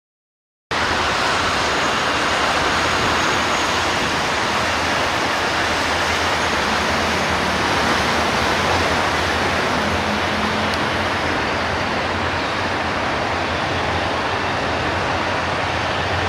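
Diesel-electric locomotive hauling a passenger train towards the listener: a steady rush of engine and wheel-on-rail noise over a low engine hum, starting suddenly just under a second in.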